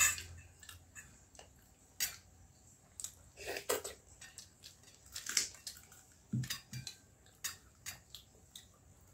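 Eating with the hand from stainless-steel bowls: fingers scooping watered rice give scattered light clicks, clinks and wet squelches, mixed with chewing.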